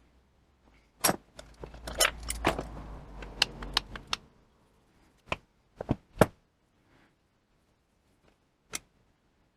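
Metal parts clinking and clattering as they are handled: a burst of sharp clinks over a low rumble for about three seconds, then a few single clinks spaced out towards the end.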